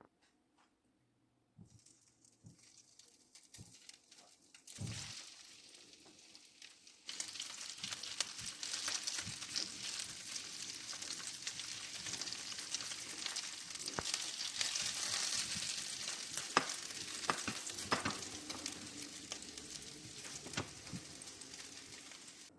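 Food sizzling and frying in a hot pan, with scattered small clicks and scrapes of stirring. The sizzle starts faint, grows loud about seven seconds in, and eases off near the end.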